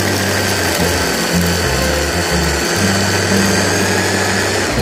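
Electric food chopper running continuously with a steady high whine, its blade grinding baby spinach, garlic, sunflower seeds and cheese into pesto.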